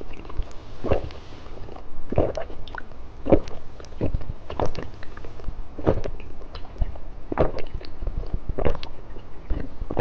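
A person biting and chewing candy close to the microphone, with a sharp bite or crunch roughly every second and a quarter.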